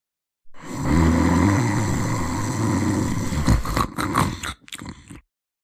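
A long, loud snore that breaks into short choppy bits near the end and then cuts off suddenly.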